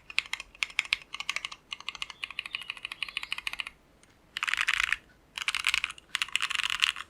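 Typing on an Ozma60 60% mechanical keyboard with Tecsee Jadeite switches, a polycarbonate plate and a tape mod: a stream of crisp keystrokes. After a brief pause about four seconds in, three bursts of very rapid keystrokes follow.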